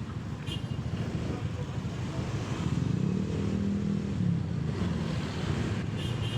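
Motorcycle engine running while riding, its note rising and falling with the throttle, over steady road and wind noise.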